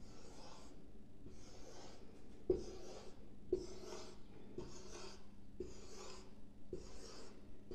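Whiteboard marker drawing circles on a whiteboard, one scratchy stroke about every second. Two sharp taps, about two and a half and three and a half seconds in, are the loudest sounds.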